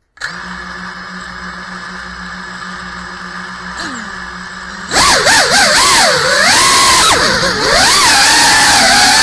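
GEPRC CineLog35 cinewhoop FPV drone: its brushless motors spin up to a steady idle whine a moment in after arming. About five seconds in the throttle opens for takeoff and the ducted-propeller whine gets much louder, swinging up and down in pitch as the throttle changes.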